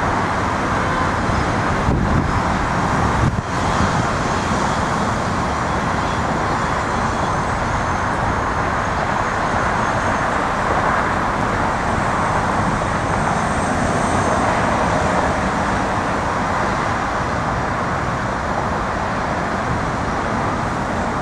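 Jet engines of a Boeing 737-600 running at takeoff thrust, a steady rushing noise with a faint high whine on top, as the airliner rolls down the runway and climbs away. Two brief low bumps come about two and three seconds in.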